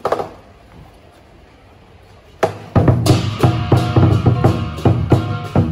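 Chinese lion dance percussion: a big lion dance drum beaten in a fast, even rhythm with a gong and cymbals ringing along, starting abruptly about two and a half seconds in after a quieter stretch.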